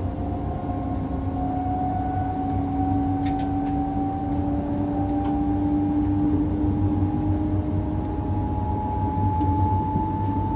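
ICE 3 high-speed electric train heard from the front passenger lounge while running: a steady low rumble of wheels on track, with the whine of the electric traction motors climbing slowly in pitch as the train picks up speed.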